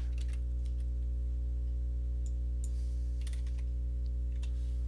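A handful of faint computer mouse and keyboard clicks, scattered through, over a steady low hum.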